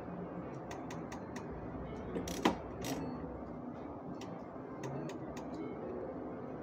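Three-reel slot machine spinning amid steady casino background noise, with scattered sharp clicks and one loud knock about two and a half seconds in.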